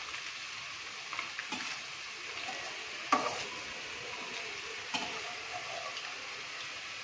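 Boiled noodles deep-frying in hot oil in a stainless steel kadai, a steady sizzle. A metal slotted spoon knocks against the pan a few times, loudest about three seconds in.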